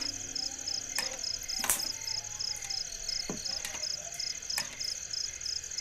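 Crickets chirping steadily, a high trill pulsing about four times a second, with a few sharp clicks scattered through. A held tone of soft music fades out in the first half-second.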